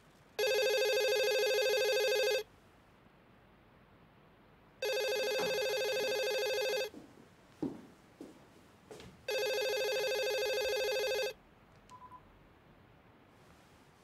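Telephone ringing three times, each ring a steady two-second tone with pauses of about two and a half seconds between them. A few soft knocks fall between the second and third rings.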